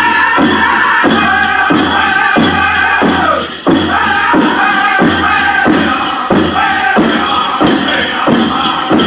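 Powwow drum group singing a chicken dance song: a steady unison drumbeat, about three beats every two seconds, under group singing. The loudness dips briefly about three and a half seconds in, then picks up with a strong beat.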